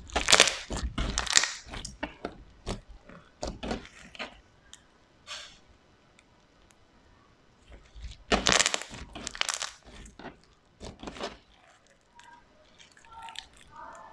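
Slime being squished and pressed, crackling and popping in two dense bursts, one right at the start and another about eight seconds in, with scattered softer pops between.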